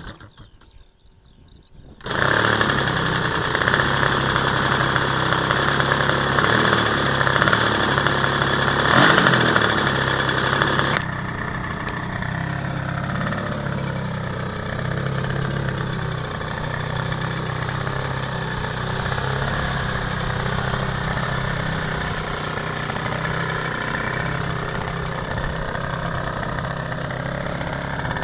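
A DLE 170 twin-cylinder two-stroke petrol engine on a large RC model plane catching about two seconds in after the propeller is flipped by hand, then running. It runs loud until about eleven seconds in, then drops suddenly to a lower, steady running sound.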